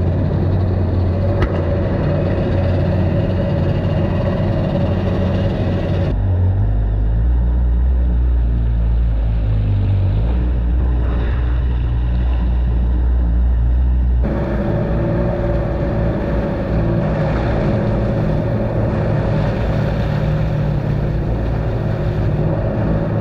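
Stand-up jet ski engine running steadily, with water wash around the hull. For several seconds in the middle the sound turns muffled and deep.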